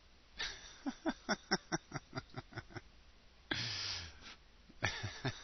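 A woman laughing: a run of quick, breathy laughs at about five a second, a long sighing exhale about three and a half seconds in, then a few more laughs near the end.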